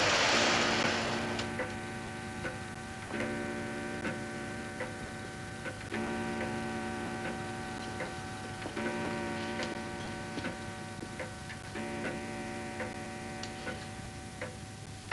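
Curtains swished shut in the first second. Then a longcase clock ticks slowly, about once a second, under a low sustained humming chord that shifts every few seconds.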